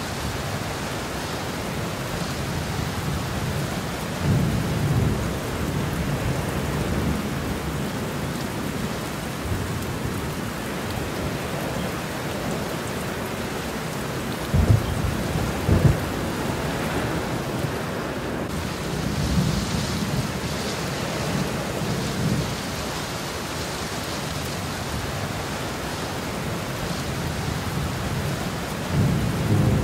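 Floodwater rushing steadily across a paved road, with low rumbles coming and going. About halfway through, a pickup truck drives through the water, splashing.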